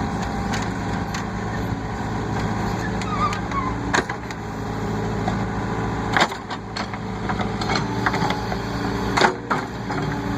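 Case 580E loader backhoe's diesel engine running steadily under hydraulic load while digging, with sharp knocks and cracks about four, six and nine seconds in as the bucket works the trench.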